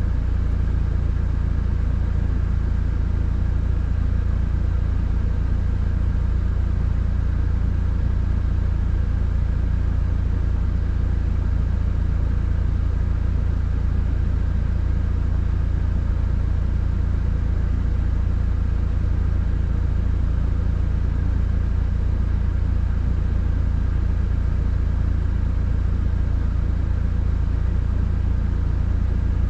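Subaru WRX heard from inside the cabin while driving: a steady low rumble of engine and road noise that holds even throughout.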